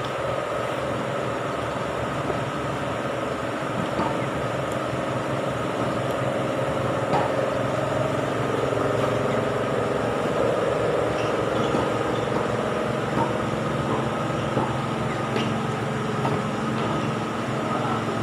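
Steady mechanical hum, like an engine or machinery running, with several held tones, and a few faint knocks scattered through it.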